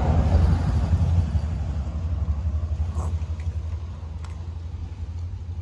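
A car going past on the road, its engine and tyre noise loudest at the start and fading away, over a steady low rumble.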